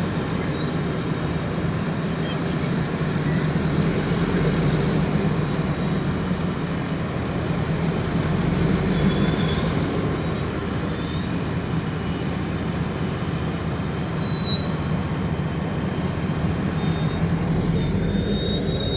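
Chicago and North Western train rolling slowly with a continuous high-pitched squeal of steel on steel over a low rumble, the squeal growing louder about six seconds in, as the train comes to a stop.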